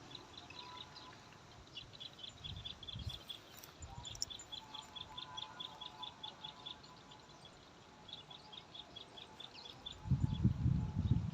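Rapid high chirps repeated about five times a second in runs of a few seconds. A low rumble gets loud near the end.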